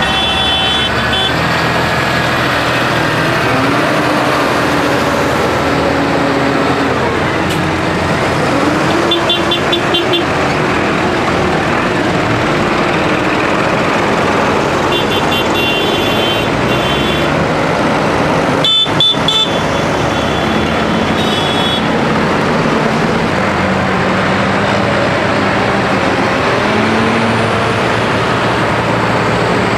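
Diesel engines of many farm tractors running as they drive slowly past in a convoy, with horn toots and several short bursts of high beeping now and then.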